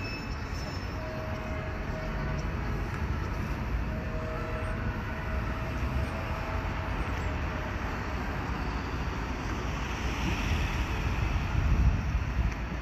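Open-top electric boat tram running past close by on the promenade rails: a steady rumble of wheels on track with a faint motor whine, getting louder about ten seconds in as it passes.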